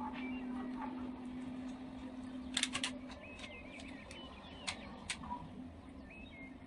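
Small birds chirping in short twittering calls, with a quick cluster of sharp clicks about two and a half seconds in and two more near five seconds, over a steady low hum that fades about three seconds in.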